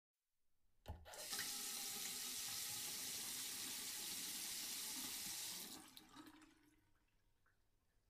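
A sink faucet is turned on with a click and water runs steadily into the basin for about four and a half seconds, then is shut off, leaving a few drips.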